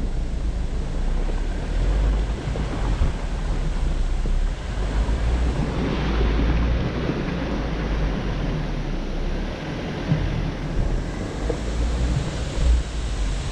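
Wind noise on the microphone of a hood-mounted camera, over the low rumble of an off-road vehicle driving along a snowy dirt trail.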